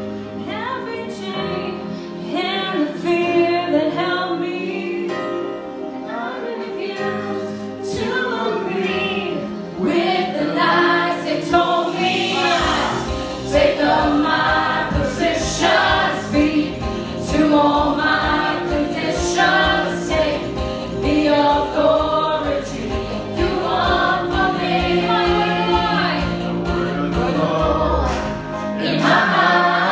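Live worship band: male and female voices singing together over electric guitar. A low bass part joins about twelve seconds in.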